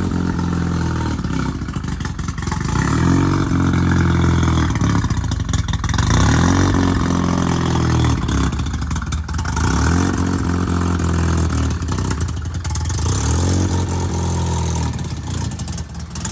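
Rotary (Wankel) engine revved again and again, its pitch climbing and falling back about every three seconds.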